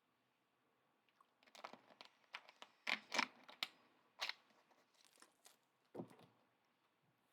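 Trading card packaging being torn open and crinkled by hand: a run of sharp, irregular crackles starting about a second and a half in, loudest in the middle, with one more near the end.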